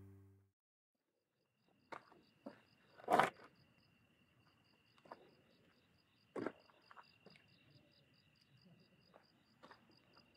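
Insects chirping: a steady high trill and a quicker pulsing chirp about four times a second, with a few sharp clicks or knocks scattered through, the loudest about three seconds in.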